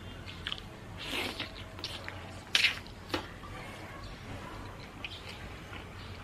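Close-miked eating sounds: small mouth clicks and wet chewing noises, with two louder noisy bursts about one and two and a half seconds in and a sharp click just after.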